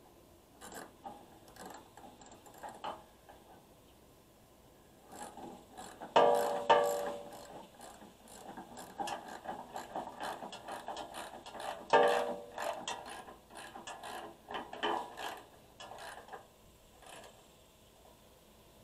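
Ratcheting wrench clicking in runs of short strokes as a bolt is tightened, with two louder metal clanks that ring briefly, about a third and two-thirds of the way through.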